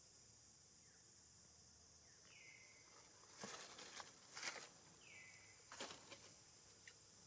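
Faint outdoor ambience: a steady high insect drone, a short falling call repeated three times about two and a half seconds apart, and a few brief rustles of movement in the middle, the loudest sounds.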